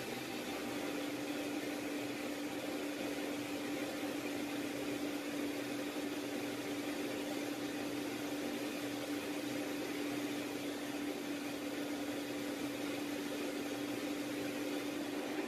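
Steady drone of aircraft engines heard from inside a flying aircraft's cabin: an even rushing noise with a constant hum that holds its pitch throughout.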